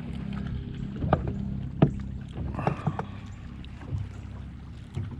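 Steady low mechanical hum on a fishing boat, with a few sharp knocks and clicks over it, the loudest about two seconds in.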